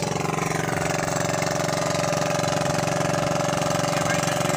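A boat's engine running steadily.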